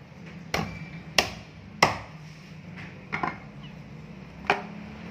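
A heavy cleaver chopping half-grilled free-range chicken into small pieces on a wooden stump chopping block. There are six sharp chops at uneven intervals, two of them in quick succession a little past halfway.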